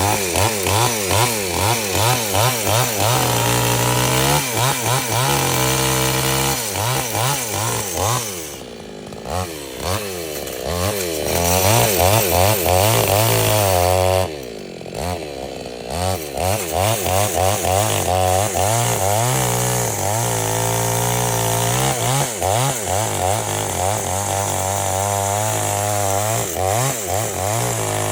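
Petrol chainsaw cutting wood, its engine pitch rising and falling about twice a second as the chain bites and frees. Twice it drops briefly toward idle before revving up again.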